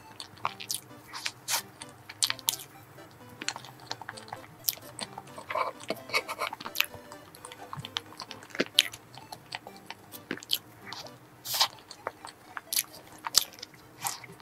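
Close-up eating sounds of a chocolate-cream and banana layer cake: chewing with many sharp, irregular wet mouth clicks.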